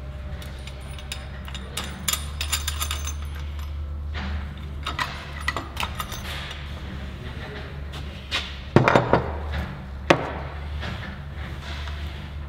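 Hand tools and small metal engine parts clinking and knocking as the engine is taken apart, with a louder clatter about nine seconds in and a sharp knock a second later, over a steady low hum.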